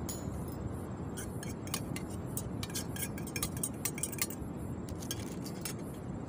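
A metal spoon clinking and scraping against a small frying pan and a steel camping mug as food is tipped out, a quick string of sharp clinks thickest in the middle, over a steady low background rumble.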